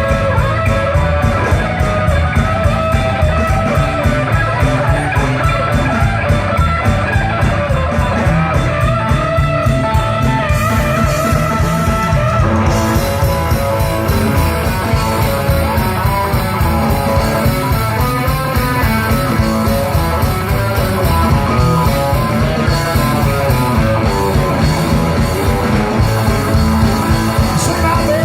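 Live rock band playing an instrumental passage: a guitar plays melodic lead lines over bass and drums with a steady beat.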